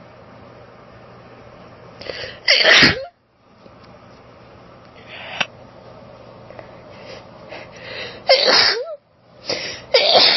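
A woman sneezing forcefully and uncovered, three times, each sneeze preceded by a short build-up: allergic sneezing. The second and third sneezes come close together near the end.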